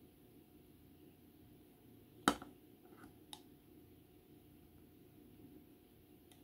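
Plastic model-kit parts for a Trumpeter F-14 Tomcat clicking as a part is handled and test-fitted against the fuselage: one sharp click a little over two seconds in, then a fainter click about a second later. A low, steady room hum runs underneath.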